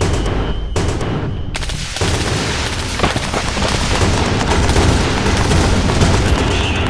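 Staged gunfire from the parade's mock-combat display, blank rounds fired in rapid bursts. Sharp shots come close together over a dense, continuous noise.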